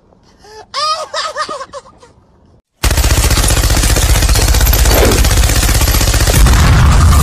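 Machine-gun fire sound effect: one long, rapid, unbroken burst that starts abruptly about three seconds in.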